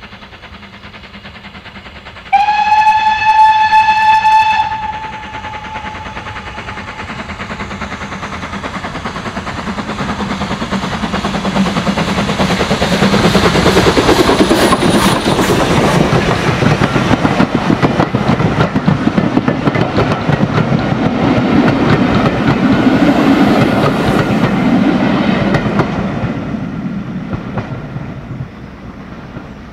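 BR Standard Class 2MT 2-6-0 steam locomotive No. 78019 sounds one whistle blast of about two and a half seconds, then approaches and passes at speed hauling coaches. The exhaust and wheel noise grow to their loudest about fourteen seconds in. The coaches then clatter by over the rail joints, and the sound dies away near the end.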